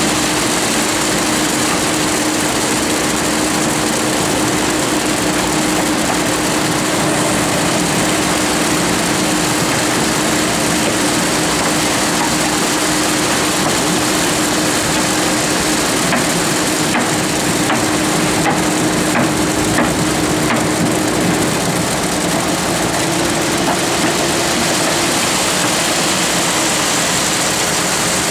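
A concrete mixer's engine running steadily while wet concrete pours down its metal chute, a continuous hum over a rushing, gritty noise.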